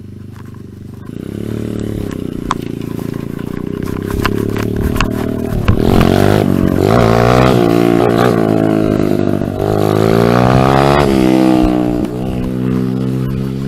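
A close vehicle engine pulls away about a second in and accelerates. Its pitch climbs, drops twice at gear changes and climbs again.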